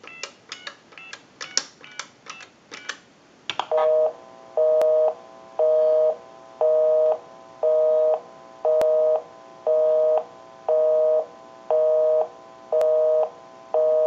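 Touch-tone keypad beeps as a number is dialed on a payphone. About four seconds in, a North American busy signal starts: a two-note tone pulsing on and off about once a second, showing that the called line is engaged.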